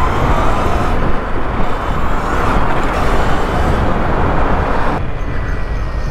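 Wind rushing over the microphone of a camera on a moving electric dirt bike, mixed with tyre and passing-traffic noise. The rush drops off sharply about five seconds in as the bike slows.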